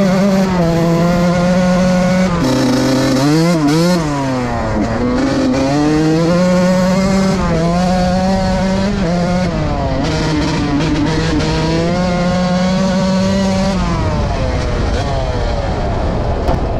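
Suzuki RM 125 two-stroke motocross bike ridden at full throttle, its engine revving high and stepping through the gears. The revs drop, then there are a few quick throttle blips about three to four seconds in, and the revs fall away near the end.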